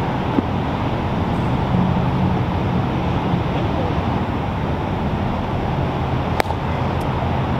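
Steady outdoor rumble like distant road traffic, with one sharp crack about six and a half seconds in, just after a baseball is thrown, and a fainter click shortly after.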